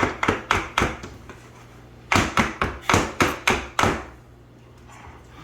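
A cake pan of thick batter being rapped against the counter to shake the batter level: two runs of quick, even knocks, about four a second, with a pause of about a second between them.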